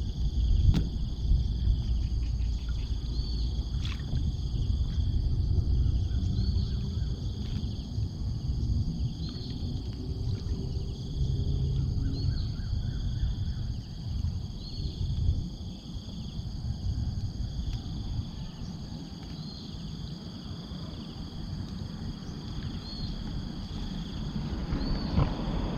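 Steady high chirring of insects, with a short high chirp repeating about every three seconds, over an uneven low rumble and a few scattered clicks.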